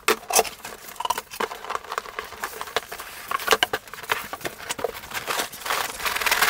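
Cardboard boxes being handled: a run of taps, knocks and scrapes as the inner boxes of a brick-kit package slide out of the large outer box, the scraping growing louder near the end.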